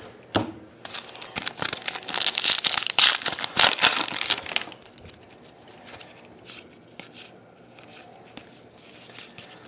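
The foil wrapper of a trading-card pack crinkling and tearing as it is ripped open for several seconds. It stops suddenly, and faint ticks of cards being handled follow.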